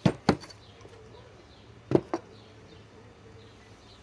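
Hot steel lag bolts, just backed out by an impact wrench, knocking together as they are handled: two pairs of sharp knocks, about two seconds apart.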